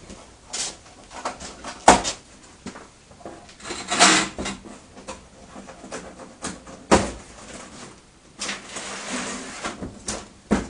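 Trailer parts and their packaging being handled on a concrete floor: a string of sharp knocks and clunks, three of them loud about two, four and seven seconds in, then about a second and a half of scraping and rustling near the end.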